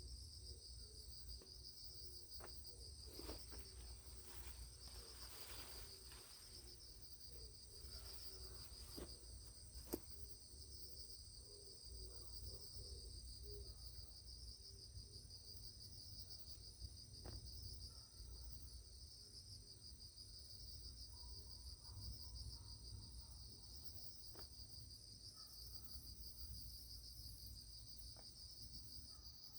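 Faint, steady chorus of insects: a high, fast-pulsing trill with a thin steady whine above it. A few soft clicks are scattered through it, one sharper click about a third of the way in.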